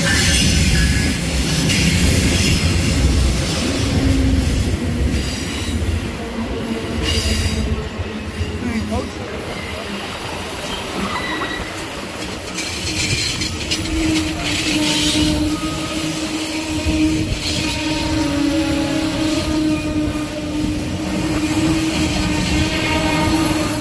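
Amtrak Coast Starlight arriving: a diesel passenger locomotive rumbles past at close range. Bi-level passenger cars then roll by slowly, and a steady squeal of wheels and brakes sets in about halfway through as the train slows for its stop.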